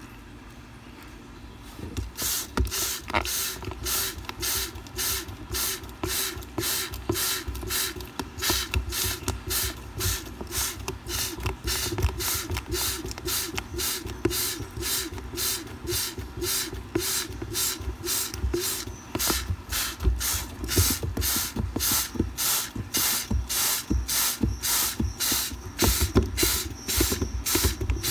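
Hand-pumped trigger spray bottle misting water onto a frog foam nest in rapid, evenly spaced squirts, about two to three a second, starting about two seconds in. The spraying washes the hatched tadpoles out of the foam.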